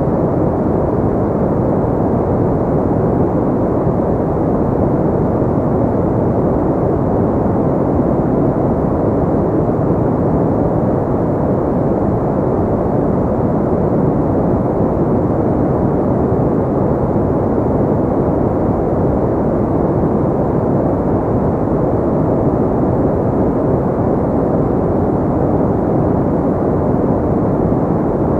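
Steady, continuous sleep noise of the kind sold as white noise, deep and muffled with almost nothing in the high treble, holding an even level with no changes.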